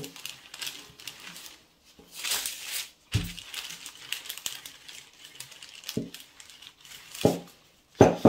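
Wooden rolling pin rolled back and forth over a sheet of butter paper covering flaxseed roti dough, the paper crinkling and rustling. A few dull knocks of the pin break in, the loudest just before the end.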